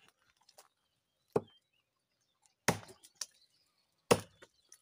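Hand axe chopping into a standing tree trunk: three hard chops about a second apart, with a lighter knock just after the second.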